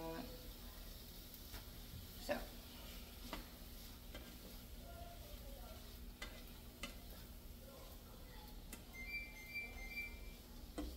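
Sliced kielbasa frying faintly in a skillet, with scattered scrapes and taps of a fish spatula turning the pieces, about one a second.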